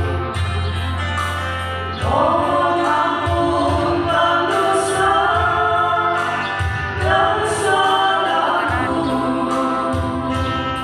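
Women's vocal trio singing a gospel song in harmony into microphones, over sustained low backing-music notes.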